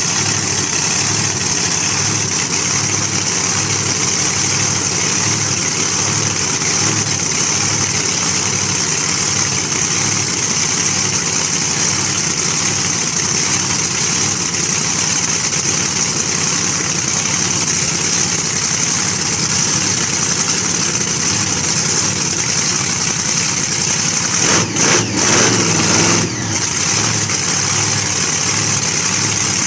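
Supercharged hot-rod V8 idling with a steady, lumpy pulse. About 25 seconds in, the throttle is blipped briefly and the engine revs up and drops back to idle.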